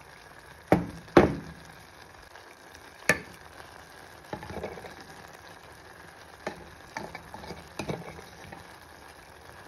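A metal fork stirring minced meat and potatoes in a frying pan, knocking against the pan in several sharp clicks, the loudest two about a second in, with softer scrapes later, over a faint steady sizzle of the cooking food.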